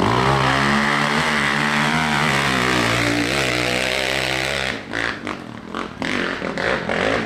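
Dirt bike engine revving hard and held at high revs as it climbs a steep hill, its pitch wavering slightly. About five seconds in, the engine note drops away suddenly and only short, irregular noises follow.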